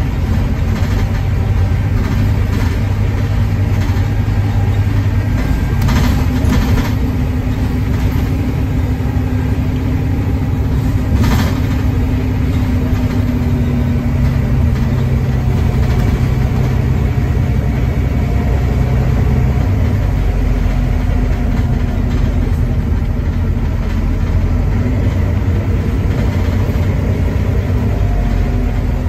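Volvo D9B 9.3-litre diesel engine of a Volvo B9TL double-decker bus, with ZF Ecolife six-speed automatic gearbox, heard from the upper deck while the bus drives, a steady loud drone whose note shifts several times. A few sharp knocks or rattles cut through about 6 and 11 seconds in.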